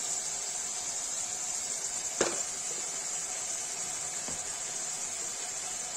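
Steady sizzle of diced potatoes frying in oil in an aluminium pot, with one sharp knock about two seconds in and a fainter one a couple of seconds later.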